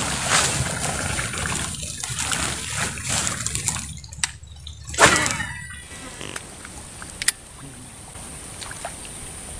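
Light, irregular splashing and rustle at the surface of a weedy pond, with one louder splash about five seconds in, then only a soft steady hiss.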